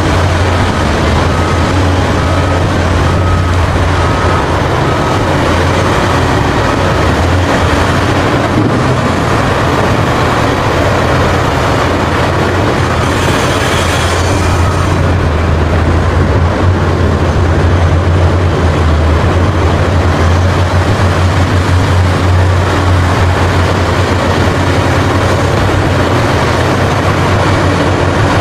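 Caterpillar 6015B hydraulic mining excavator running steadily under load as it digs and swings, a deep continuous engine hum with machine noise over it. There is a brief hiss about halfway through.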